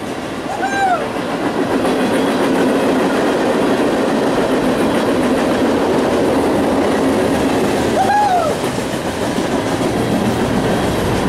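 Freight train rolling past at close range: a steady rumble and clatter of steel wheels on the rails. Two brief high-pitched chirps, near the start and about eight seconds in.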